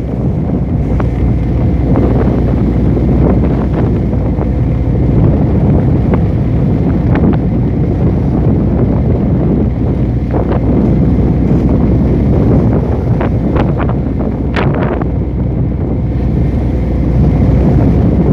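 Strong wind buffeting the microphone over the rush of big waves, with short sharp knocks or splashes now and then, more of them in the second half.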